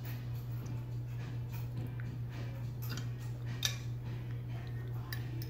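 A few sharp clicks of a fork against a metal plate while eating, the loudest about three and a half seconds in, over a steady low hum.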